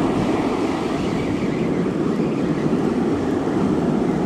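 Steady rushing noise of wind buffeting the microphone, mixed with surf washing up the beach.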